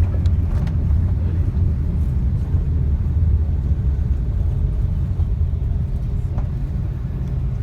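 Steady low rumble in a jet airliner's cabin as the aircraft rolls on the ground after landing, easing slightly toward the end.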